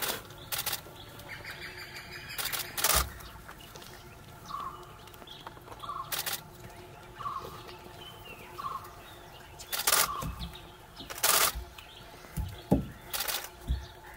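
Camera shutters firing in short bursts, about seven times at irregular intervals. Between them a faint short call repeats four times, about one and a half seconds apart.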